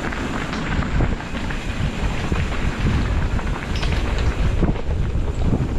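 Wind buffeting a camera microphone: steady, rough, low rushing noise with flickering gusts.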